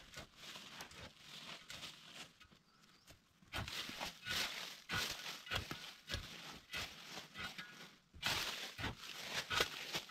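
Irregular rustling and crackling of branches and dry leaves being handled, in uneven bursts that grow busier and louder about a third of the way in.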